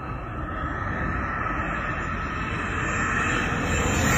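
Radio-controlled model jet flying past, a steady rushing engine noise that grows steadily louder as it approaches.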